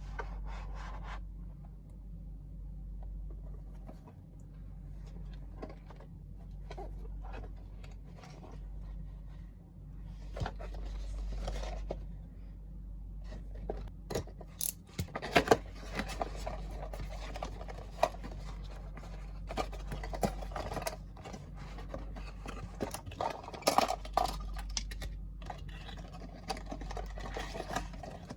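Hands unboxing a 1/64-scale diecast diorama set: packaging and small parts scraping and rustling, with scattered clicks and taps that grow busier and sharper about halfway through. A steady low hum runs underneath.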